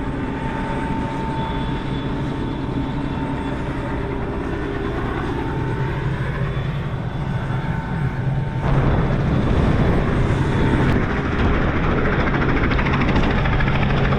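Tour helicopter running, a steady engine hum and rotor noise with a thin whine; it grows louder and rougher about nine seconds in.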